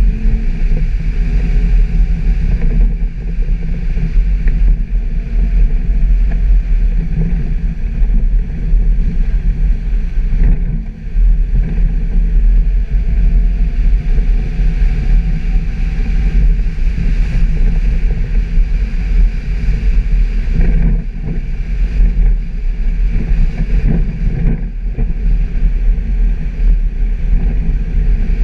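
Suzuki Jimny driving off-road: a steady, loud low rumble from the engine and drivetrain, with occasional knocks and faint rising whines as it picks up speed.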